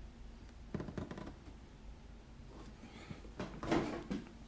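A few soft knocks and rustles from a cardboard toaster box being handled and set aside on a kitchen counter.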